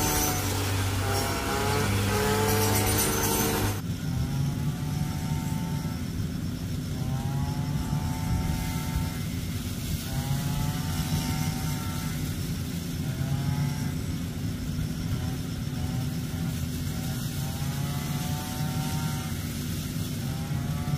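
Small petrol engine of a mini rice thresher running, its pitch rising and falling every second or two. About four seconds in, the sound drops to a quieter, more distant run of the same kind.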